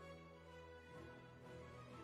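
Soft, quiet intro music of sustained held notes, moving to a new chord about halfway through.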